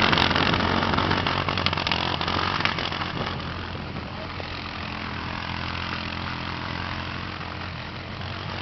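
Yerf-Dog 150 Spiderbox go-kart's engine running as the kart drives away, fading over the first few seconds and then holding a steady distant drone.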